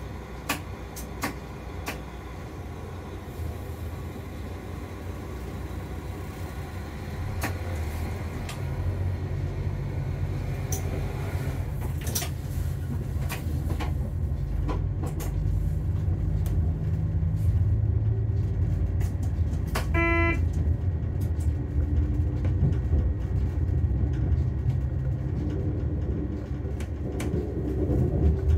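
Diesel train running with a low rumble that grows louder from about a quarter of the way in, as under acceleration. A few sharp clicks come in the first two seconds, and a brief pitched tone sounds about two-thirds of the way in.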